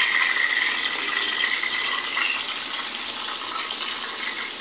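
Cumin seeds, a black cardamom and a cinnamon stick sizzling and crackling in hot oil in a karahi: a steady hiss that eases a little as the flame is turned right down.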